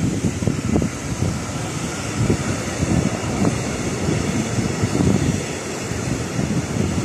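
Container freight train's wagons rolling past on the track: a continuous low rumble, mixed with wind noise on the microphone.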